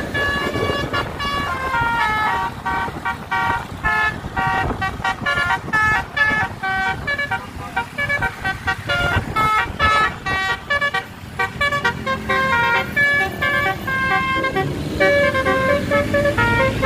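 Bus basuri horn playing a quick melody of steady notes that change pitch several times a second, over road and engine noise.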